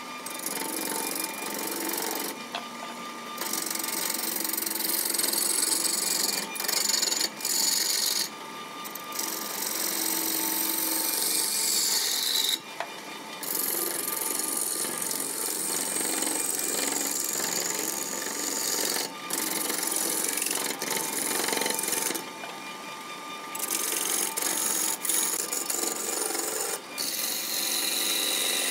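Hand turning tool cutting into a spinning wooden blank on a wood lathe: a continuous rasping hiss of shavings peeling off, broken by several short pauses when the tool lifts off the wood. Under it runs the steady hum of the running lathe.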